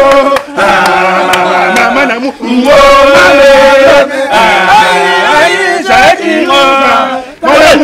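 Voices chanting and singing in long held notes, in phrases of one to two seconds with short breaks between them.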